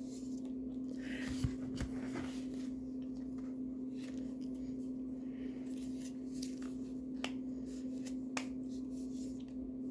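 A few faint clicks and light rustles of hands handling a small plastic mold packed with kinetic sand, over a steady low hum.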